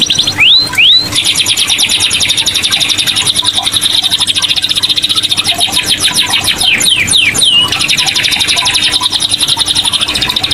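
Domestic canary singing without pause in rapid, buzzing trills, broken by two quick falling whistles about half a second in and a run of falling sweeps about two-thirds of the way through.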